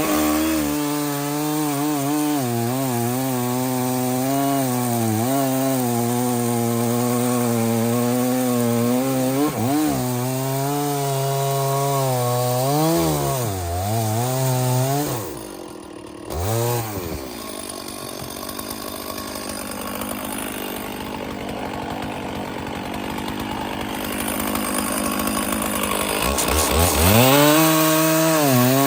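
Stihl chainsaw cutting through oak, its engine note wavering up and down as it works under load. About halfway through the engine note drops away briefly, it runs rougher and noisier for several seconds, then revs back up near the end.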